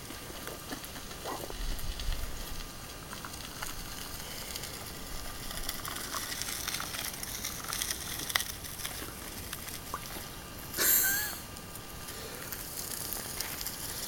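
Bicycle tyres crunching and crackling over a gravel trail as riders pass, with scattered ticks of small stones. About eleven seconds in there is one short, loud burst with a brief squeak in it.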